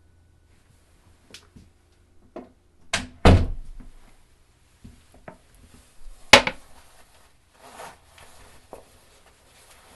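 A series of knocks and thunks in a small room, with a loud double thunk about three seconds in and a sharp clunk just past six seconds. Smaller clicks and a brief rustle come between them.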